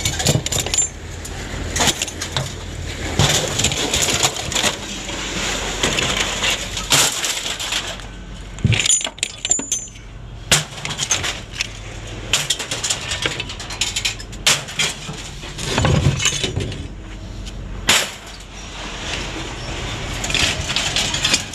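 Scrap metal pieces being handled and tossed, clanking and clinking again and again, with a low steady hum under part of it.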